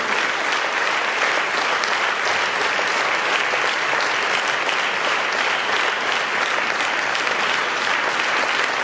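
Concert-hall audience applauding steadily with sustained clapping.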